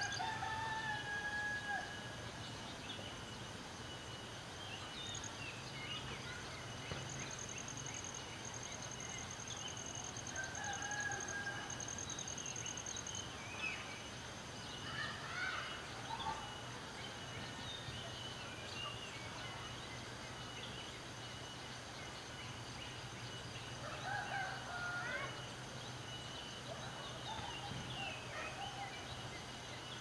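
Rural birdsong: scattered small-bird chirps, with a rooster crowing three times, about ten seconds apart. A high, steady insect buzz runs for several seconds in the first half.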